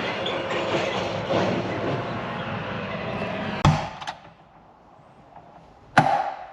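Steady workshop noise that cuts off abruptly with a sharp knock, then a second sharp knock about two and a half seconds later.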